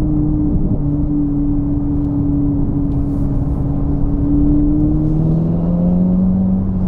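Ferrari 488 GTB's twin-turbo V8 with an aftermarket exhaust droning steadily at a light cruise, with road rumble underneath; the engine note rises slightly about five seconds in as the car picks up a little speed.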